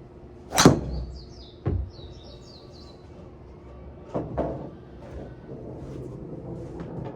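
A Titleist TSR4 driver striking a golf ball: one sharp, loud crack, followed about a second later by a dull thump. A run of high falling chirps comes just after the strike, and there are a couple of softer knocks later.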